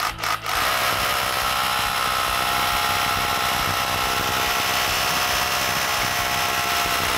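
Keyang HD20BLH-24T 20V cordless rotary hammer drill boring a hole into a concrete slab in hammer-drill mode. A few short knocks as it starts, then it runs steadily under load.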